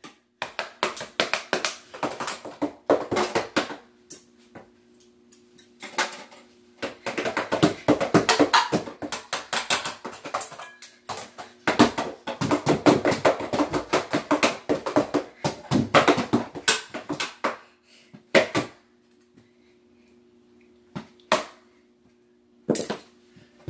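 A drum set played by a child: fast runs of hits in bursts with short pauses between, then a few single strikes near the end.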